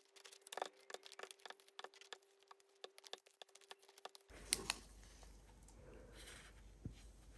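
Faint, rapid small clicks and taps, several a second, as fingers with long nails press and work a rubber crackle stamp down onto a paper journal page; after about four seconds only a few scattered clicks as the page is handled.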